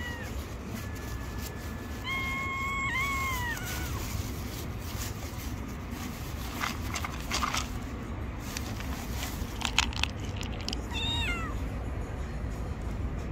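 Tabby cat meowing: a short meow at the start, a long meow about two seconds in, and a shorter falling meow near the end, over a low steady rumble of traffic.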